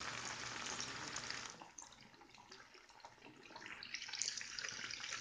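Tap water running into a kitchen sink, easing off about a second and a half in and picking up again near the end.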